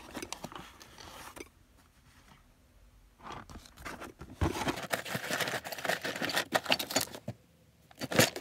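Hands rummaging through plastic storage bins of LEGO pieces: plastic knocking, rattling and rustling. It comes in a short burst about three seconds in, then as a dense run of clicks and scrapes for about three seconds, with a sharp clatter near the end.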